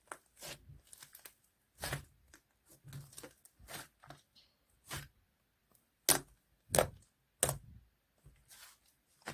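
Slime being pressed and worked by hand, giving a string of separate sharp pops and crackles, one or two a second, the loudest a little past the middle.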